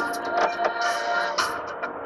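Music with drum hits playing from an FM radio station on the car radio, heard inside the car.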